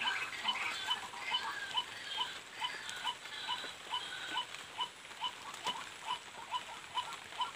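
A small animal calling steadily: short, evenly spaced chirps repeating about twice a second.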